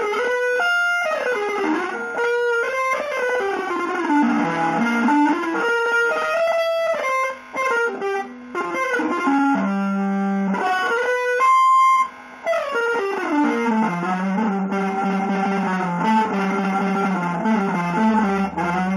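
Solo electric guitar playing quick melodic runs broken by a few short pauses, settling into held notes over a sustained low note near the end.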